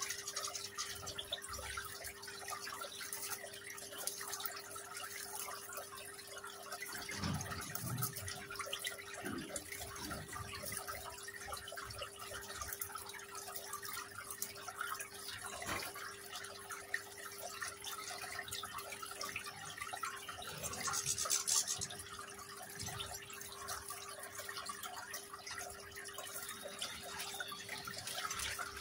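Water trickling and dripping in a small decorative rock fountain, over a steady low hum.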